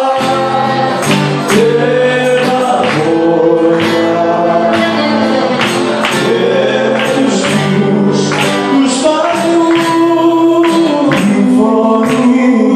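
Live zeibekiko song: a man singing a Greek melody over a plucked string instrument strummed in a steady rhythm.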